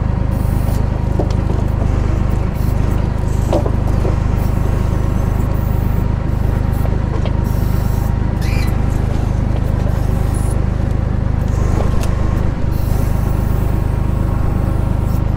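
Tractor engine running steadily and driving the FTG FB42 timber crane's hydraulics as the crane works, lifting and swinging a grapple-load of logs. A few faint knocks come through, about a third of the way in, near the middle and about three-quarters of the way in.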